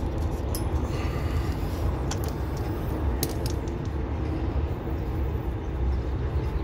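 Refrigeration gauge hoses being unscrewed from a heat pump's service valves: a few short, sharp metallic clicks over a steady low rumble.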